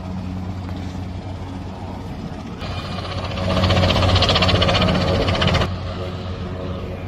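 Engine running with a steady low hum; a little under three seconds in, a louder, rapidly pulsing stretch sets in for about three seconds, then cuts off suddenly.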